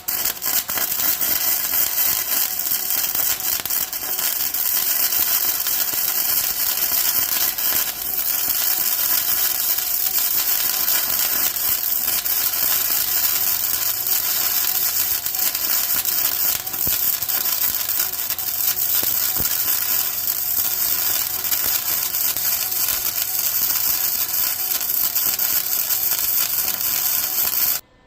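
Electric welder laying one long continuous weld bead on steel: a steady, loud crackling hiss that starts and stops abruptly, with a low welder hum coming in about halfway.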